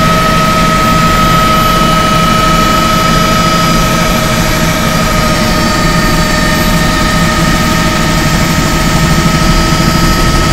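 Helicopter in flight heard from inside the cabin: a loud, steady engine and rotor din with a high, steady whine over it.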